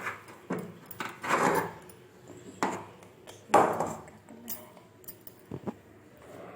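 Metal kitchen utensils and a cooking pot being handled, with scattered sharp clinks and knocks and two louder scraping rushes, about a second and a half in and again at about three and a half seconds.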